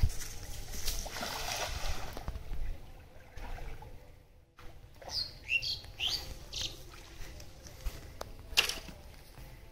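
A cast net is thrown and lands on the pond with a splash in the first few seconds. A bird then gives a few quick chirps near the middle, and there is a single sharp click near the end.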